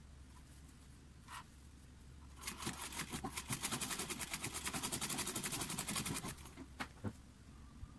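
Domestic sewing machine stitching through layered fabric. After a single click, it starts a couple of seconds in and runs for about four seconds with a fast, even ticking of roughly ten stitches a second. It stops before two short clicks near the end.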